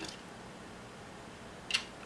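Two small clicks of metal parts and a screwdriver on a camcorder's tape mechanism being taken apart: a light one at the start and a sharper one near the end.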